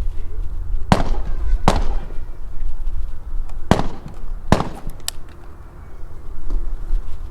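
Five gunshots at a firing range, unevenly spaced: two about a second in, then three between about three and a half and five seconds, each a sharp crack with a short echoing tail.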